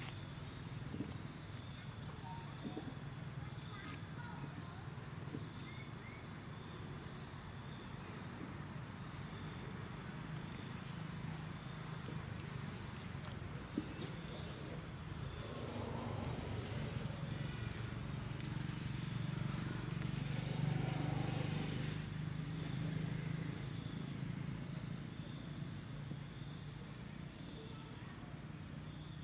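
Insects calling: a steady high drone from several insects, with a fast chirping pulse of about four a second that stops twice and starts again. A low steady rumble runs underneath.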